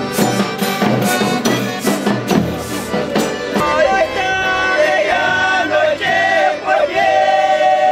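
Folk music from a Folia de Reis group: a viola and a cavaquinho strummed hard with percussion hits. About three and a half seconds in, voices come in singing long held notes over the strumming.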